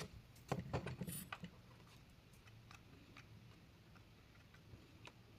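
Small clicks and knocks of hard objects being handled, a quick cluster of them about half a second to a second and a half in, then a few faint scattered ticks.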